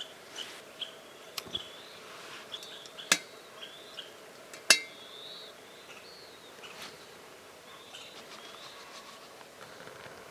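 Small bird chirping in short, repeated high notes, with two sharp clicks about three and four and a half seconds in.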